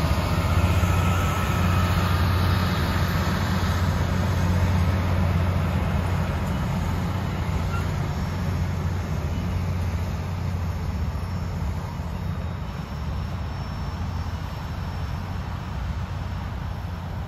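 Union Pacific heritage passenger cars rolling past on the rails, a steady low rumble that slowly fades as the end of the train goes by.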